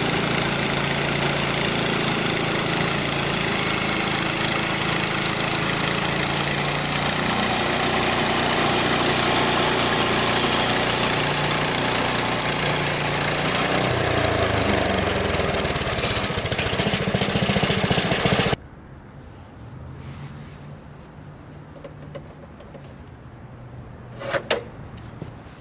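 Frontier OS23 band sawmill running under load: the small gas engine's steady note under a loud hiss from the band blade cutting through a maple log. The engine pitch sinks about two-thirds of the way through. The loud sound then cuts off suddenly, leaving a faint engine sound and a couple of sharp clicks near the end.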